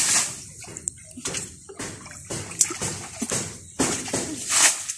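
Hands splashing and sloshing in shallow muddy water while groping for fish, in irregular bursts, the loudest at the start and about four and a half seconds in.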